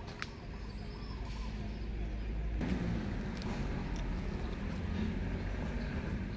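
Outdoor background noise: a steady low rumble that grows louder about two and a half seconds in, with a few faint short high calls in the first second.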